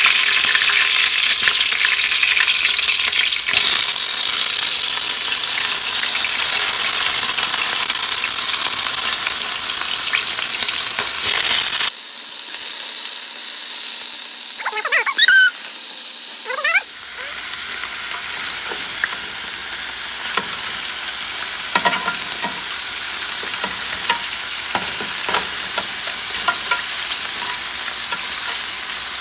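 Oxtails pan-searing in hot avocado oil: a steady sizzle, with small pops and crackles scattered through the later part.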